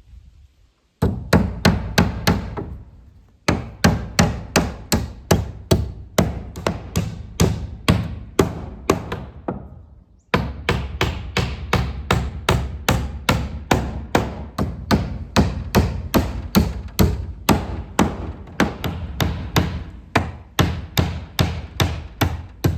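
Hammer driving nails into wooden board-and-batten siding: quick, steady blows about four a second, in three runs broken by short pauses about three and ten seconds in.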